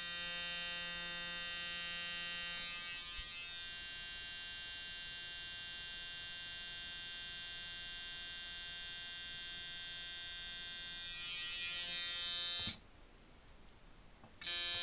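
Seth Ciferri coil tattoo liner buzzing steadily on 7 volts, running solid. It cuts off about 13 seconds in and starts again just before the end.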